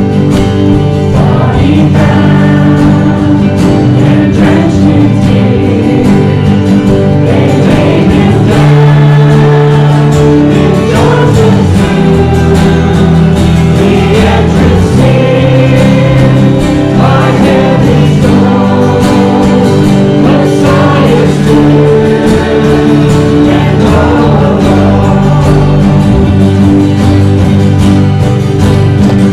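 Congregation singing a worship song together, with guitar accompaniment.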